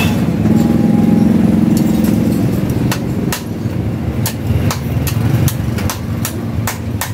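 Sharp, irregular metal taps and clinks of a hand tool working on a stripped motorcycle's steering head. They come two or three a second from about three seconds in, over a steady engine hum that drops back at about the same time.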